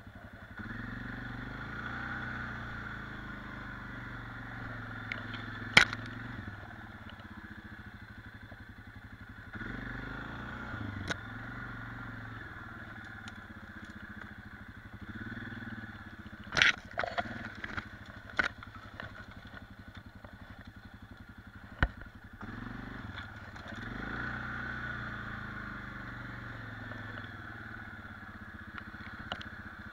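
Quad ATV engine running as it is ridden, its pitch rising and falling repeatedly with the throttle. Several sharp knocks break in over the engine.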